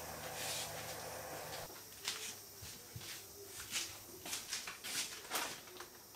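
A small saucepan of sauce simmering on the stovetop, a steady low hiss with faint bubbling, for about the first second and a half. Then a run of sharp, light clicks and taps.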